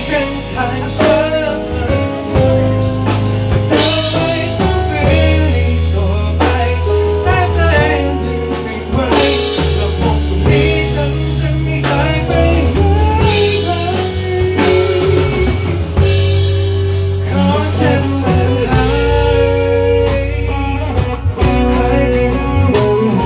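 Live band music at full level: a pop-rock song's instrumental passage with guitar, bass and drum kit, the melody bending in pitch over a steady bass line.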